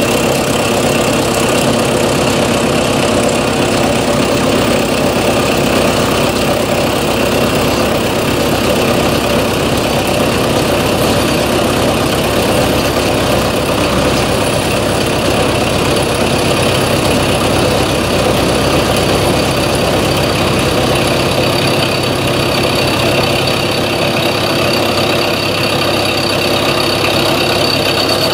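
Milling machine spindle running as an end mill cuts the edge of a 1/8-inch-thick metal plate, a steady machine sound. A high-pitched squeal from the cut grows near the end.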